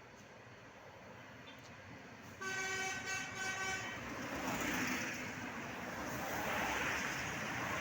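A bus horn gives three or four short toots on one pitch about two and a half seconds in, over road traffic noise. After the toots, the noise of passing traffic grows louder.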